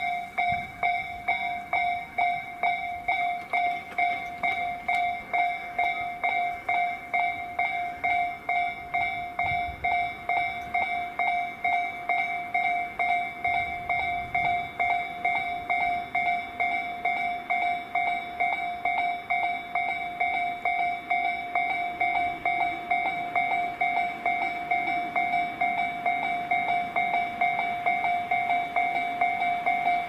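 Japanese level-crossing warning alarm ringing repeatedly in a fast, even rhythm: the crossing signalling an approaching train.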